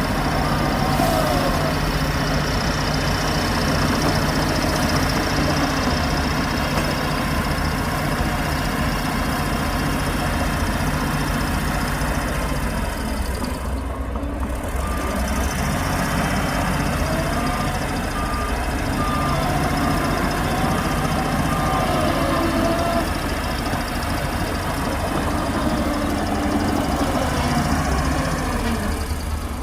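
Shantui DH17C2 bulldozer's diesel engine running steadily under load, its pitch rising and falling as it works. A vehicle reversing alarm beeps in a regular series of short tones at the start and again for several seconds around the middle.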